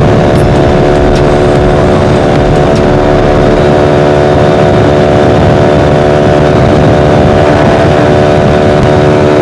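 Bajaj Pulsar 135 LS single-cylinder engine running through a loud modified aftermarket exhaust while riding, its note held steady at constant throttle.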